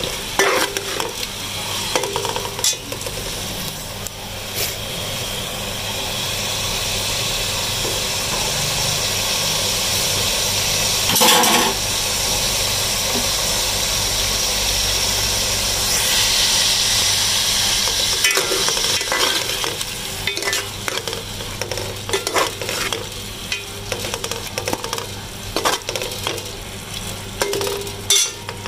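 Raw beef mince sizzling as it browns in oil in a metal pot, with a metal spoon stirring and scraping against the pot. There is one louder knock about eleven seconds in.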